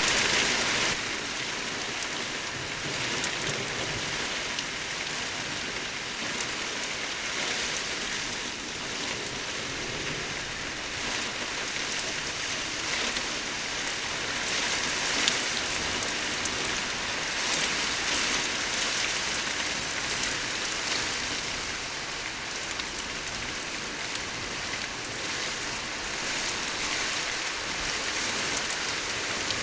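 Heavy rain from a thunderstorm falling steadily, a dense hiss of drops with one sharp tick about halfway through.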